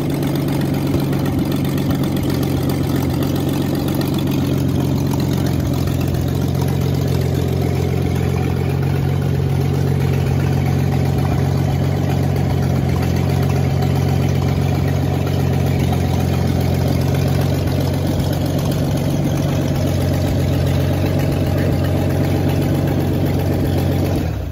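Lincoln Zephyr flathead V12 engine on a test stand, running steadily at an even idle.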